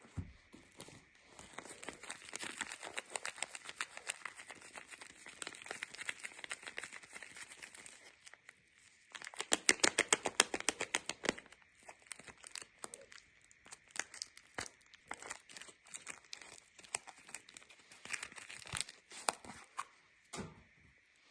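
Soap packaging being unwrapped by hand: a wrapper crinkling steadily for several seconds, then torn open in a louder run of rapid crackles a little under halfway through, followed by scattered crinkles and light handling clicks.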